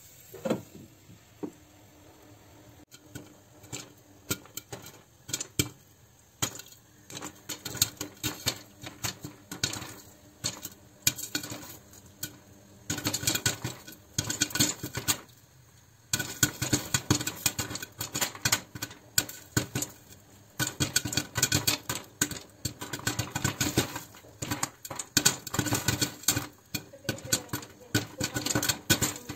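Popcorn kernels popping in a covered pot, with the pops hitting a glass lid. The glass lid knocks into place about half a second in. A few pops follow, and they grow into rapid, dense popping from about halfway through.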